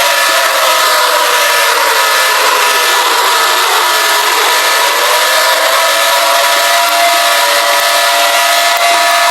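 Emergency-alert alarm sounding loud and harsh: several steady tones held together over a hiss, with one tone sliding down and back up in the middle before settling into a steady pitch.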